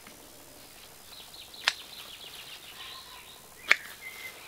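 Two sharp snips of hand pruning shears cutting tomato shoots, about two seconds apart, with birds chirping faintly between them.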